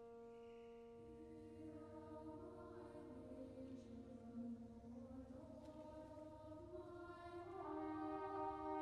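High school wind ensemble holding sustained chords over a low rumble that enters about a second in, growing louder toward the end.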